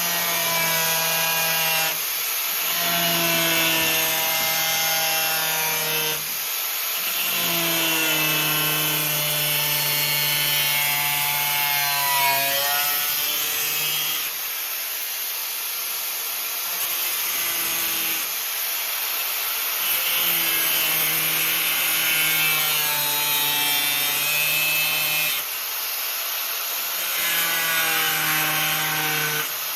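Electric power tool run in repeated bursts of a few seconds against steel, with a steady motor hum and a grinding, sawing hiss that sag a little in pitch as it bears in.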